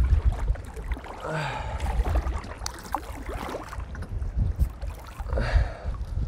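Wind buffeting the microphone in a low rumble, over water slapping and sloshing around a plastic kayak as it is paddled, with two louder paddle splashes about a second and a half in and again near the end.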